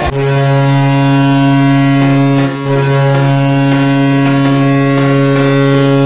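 The Toronto Maple Leafs' hockey arena goal horn, a deep steady horn blast signalling a goal. It starts abruptly, breaks for a moment about two and a half seconds in, then sounds on at the same pitch.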